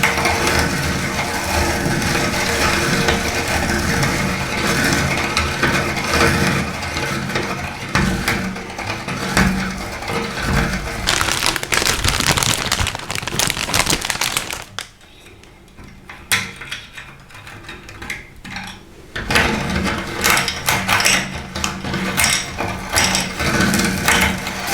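Meat grinder crushing salty sticks: steady machine running with dense crackling and crunching as the sticks break up. It goes much quieter for about four seconds midway, then the grinding resumes.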